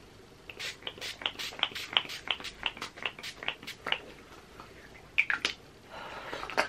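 Pump bottle of Urban Decay All Nighter setting spray spritzed in a rapid run of short sprays, about four or five a second, then a few more near the end.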